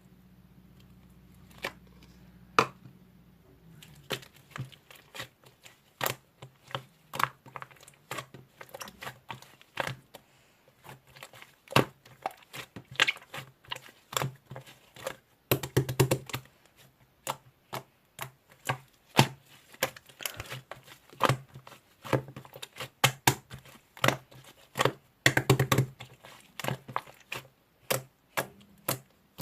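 Slime being squished and stretched by hand, giving off irregular sticky clicks and pops. There are a few at first, then a steady run of them, thickening into dense crackling twice.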